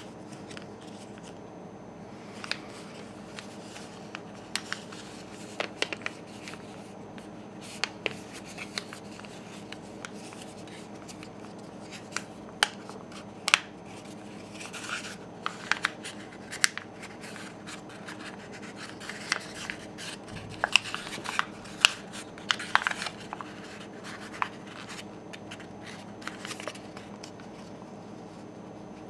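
A paper origami boat being folded and creased by hand: irregular crinkles, scrapes and sharp crackles of paper, busiest in the middle stretch, over a steady low hum.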